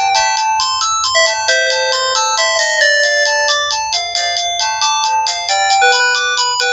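Sanex SC-7090i phone's loudspeaker playing one of its built-in polyphonic ringtones on the standard CMX sound synth. A brisk tune of clean, steady electronic notes that step from pitch to pitch, with several notes sounding at once and no bass.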